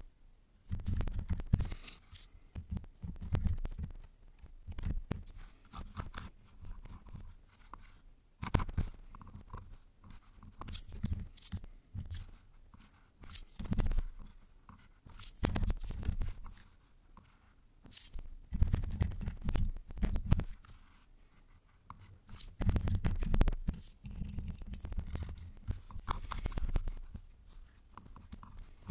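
Computer keyboard typing and clicking in irregular bursts, with dull low thumps from the desk.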